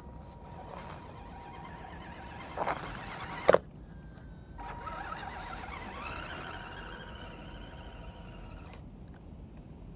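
Electric motor and gear drive of an Axial SCX10 radio-controlled Jeep whining as it pushes through snow with its plow. The whine rises and falls with the throttle. A single sharp knock comes about three and a half seconds in.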